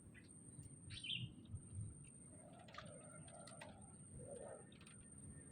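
A few faint, short bird calls over quiet background, with a thin, steady high-pitched tone running underneath.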